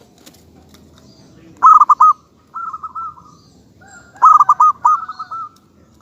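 Zebra dove (perkutut) cooing in phrases of quick rolling coo notes. Loud phrases come about one and a half seconds in and again about four seconds in, with a softer phrase between them.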